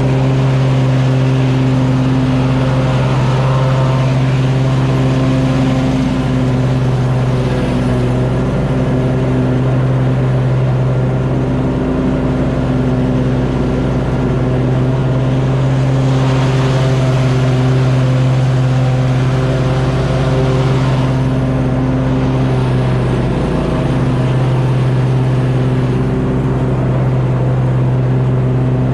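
Simplicity Courier zero-turn riding mower running steadily at mowing speed with its blades cutting grass, heard close up from the operator's seat, with a spell of added rushing hiss a little past halfway.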